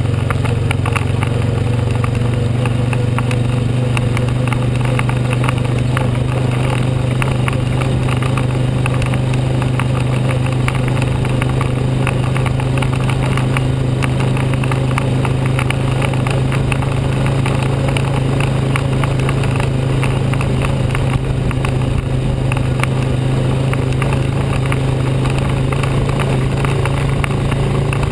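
ATV (four-wheeler) engine running at a steady, unchanging pitch while the quad cruises along at an even speed, with a dense crackle of noise over it.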